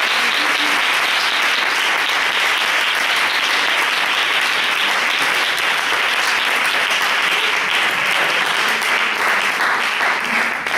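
An audience applauding, a dense steady clapping that begins to die away near the end.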